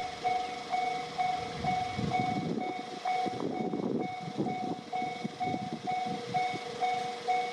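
Japanese railway level-crossing warning bell ringing, an electronic ding repeating about twice a second. A train's rumble and clatter rises and fades through the middle few seconds.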